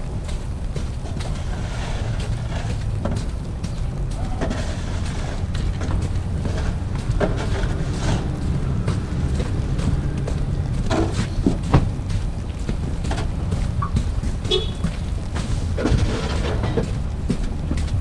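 Footsteps on a slushy, snow-covered sidewalk over a steady low rumble of wind on the microphone and city street noise, with scattered small taps and clicks.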